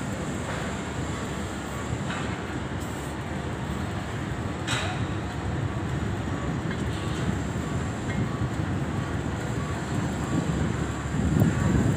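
Steady low rumble of heavy crane machinery running during a lift, with a brief sharp click about five seconds in and the rumble swelling near the end.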